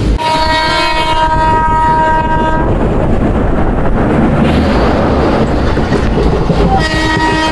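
Train horn sounding a steady chord for about two and a half seconds, then again near the end, over the continuous rumble and clatter of the moving passenger train heard from aboard.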